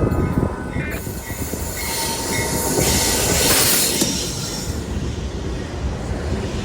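Train passing close by with a steady low rumble of wheels on rail and thin, steady wheel squeal in the first second. A broad rushing hiss swells and peaks about three to four seconds in, then eases.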